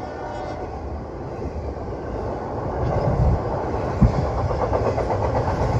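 Norfolk Southern freight train rolling past with a steady low rumble of wheels on rail, its horn's last note dying away at the very start. A single sharp knock about four seconds in.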